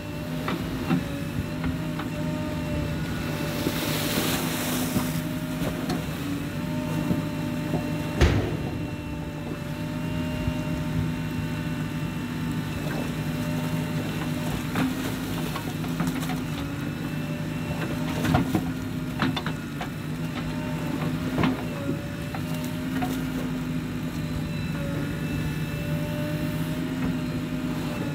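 JCB backhoe loader's diesel engine running under load as its backhoe arm digs and churns wet clay, with a constant whine over the engine. A few sharp clanks from the bucket and arm, the strongest about eight seconds in.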